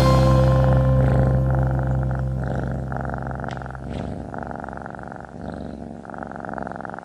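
A cat purring in pulses about a second long with short pauses between them. Under it, the last low notes of background music fade away over the first few seconds.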